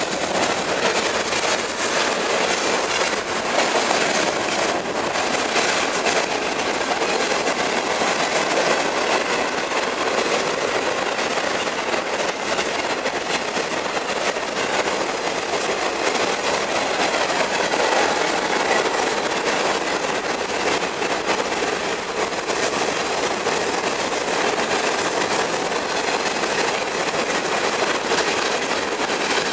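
Freight train cars rolling past at speed: steady noise of steel wheels running on the rails.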